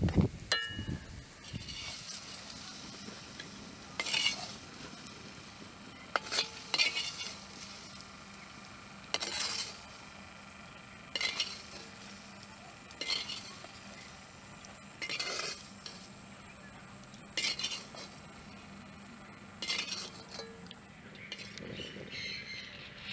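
A bamboo-handled ladle scraping and stirring moringa drumstick pieces in a blackened iron wok, in short strokes about every two seconds, with a low sizzle of hot oil between the strokes.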